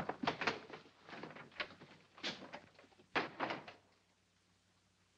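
A door opening and shutting, with a run of knocks and thuds; the last loud knock comes about three seconds in, and the sounds stop soon after.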